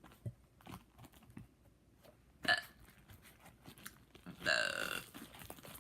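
A person burping: a short burp about halfway through, then a longer, pitched burp near the end. A few soft clicks come before them.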